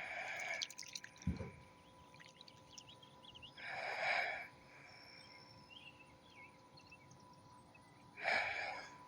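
Baby bird bathing in shallow water, splashing and fluttering in three short bursts a few seconds apart, with a single low thump about a second in.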